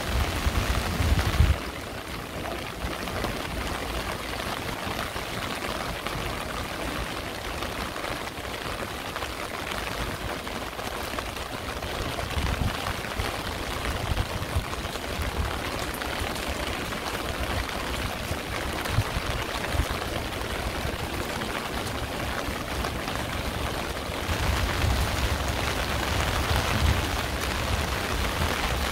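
Steady rain falling, an even hiss of drops on the ground and surfaces around. It is louder and fuller for the first second or so, quietens abruptly, then grows louder and heavier again near the end.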